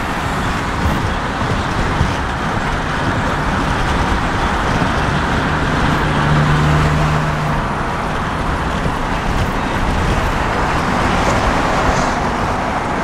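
Steady road and tyre noise heard inside a car's cabin while driving at highway speed. A low hum stands out for a couple of seconds around the middle.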